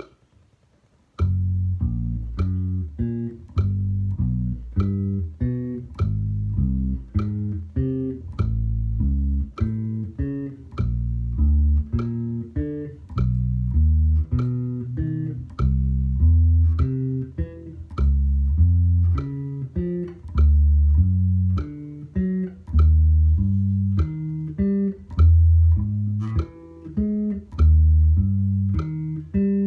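Bass guitar playing a fretting-hand finger drill, single low notes plucked one after another in a steady pattern to a metronome's regular clicks. The notes start about a second in.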